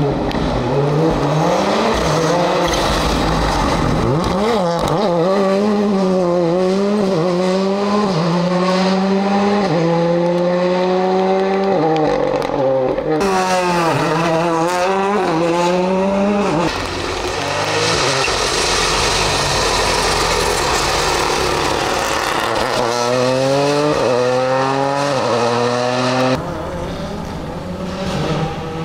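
Rally car engines revving hard and shifting up through the gears, the pitch climbing and dropping back at each change, over several passes with abrupt jumps between them.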